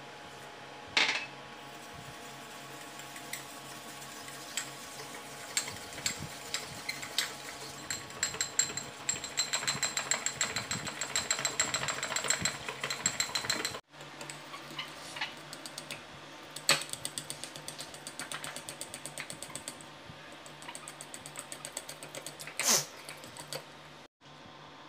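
A metal fork beating instant coffee, sugar and a little water in a glass bowl, tapping the glass in fast, rapid strokes as the mixture is whipped into a pale froth, with a few louder knocks. A steady hum, like a fan, runs underneath.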